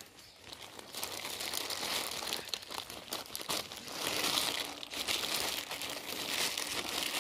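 Crinkly, crackling rustling that swells and fades in waves, made of many small dry clicks.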